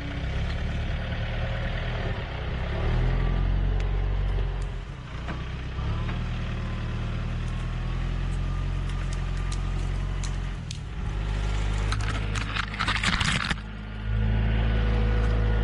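Tractor engine running and working under changing load, its note swelling and easing several times. A loud crackling, rasping burst about twelve seconds in.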